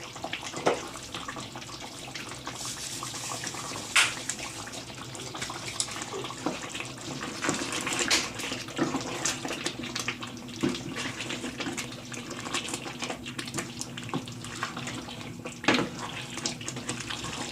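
Thick curry gravy simmering and bubbling in a pan, a steady hiss with scattered small pops and a few sharper knocks.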